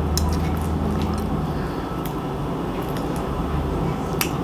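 A knife and fork cutting meat in a bowl, giving a few sharp clicks of cutlery on the dish over a steady low hum.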